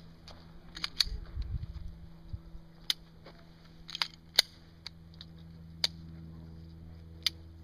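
About six sharp, isolated clicks or cracks at irregular intervals over a low steady hum.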